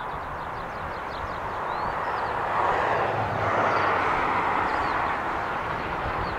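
LNER A4 Pacific three-cylinder steam locomotive Bittern and its coaches running past at speed: a steady rushing sound that swells as the train draws level, with birds chirping in the first second or so.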